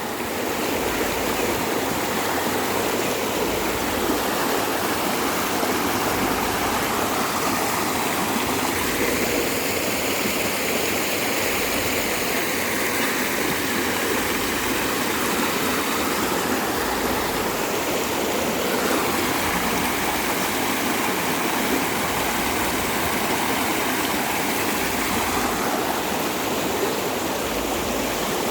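Floodwater rushing steadily, a continuous flowing noise.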